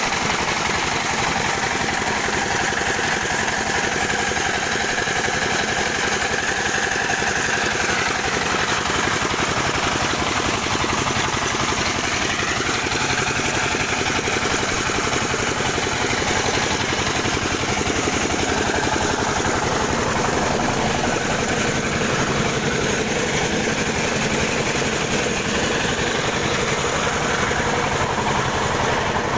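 Hammer mill with its suction blower running steadily: an even mechanical drone with a fast, fine rattle and a strong airy hiss, unchanging throughout.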